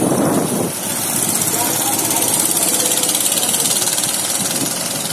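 Go-kart engines running as karts drive past on the track: a louder rush in the first moment as a kart goes by close, then a steady engine drone as they pull away down the straight.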